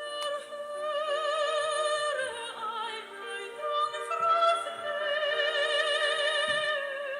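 Background music: a classical, operatic-style solo voice singing long held notes with wide vibrato over sustained accompaniment chords.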